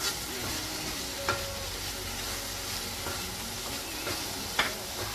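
Minced beef sizzling as it fries in a pot, stirred with a wooden spoon, with three short sharp knocks.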